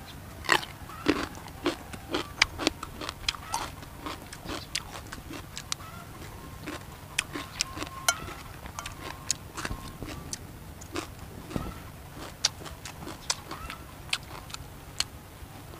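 Close-up chewing and crunching of raw vegetables and grilled crab prahok, heard as a steady run of short wet mouth clicks and smacks.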